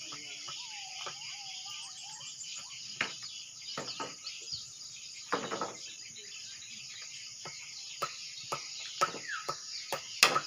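Swiftlets chirping in short, sharp calls, a few at first and coming thicker and louder near the end, over a steady high buzz.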